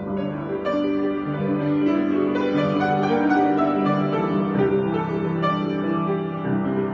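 Solo piano being improvised: sustained chords under a slow melody, with notes changing about once a second.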